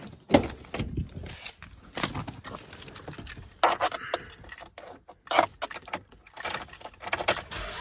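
Keys jangling, with irregular clicks and knocks.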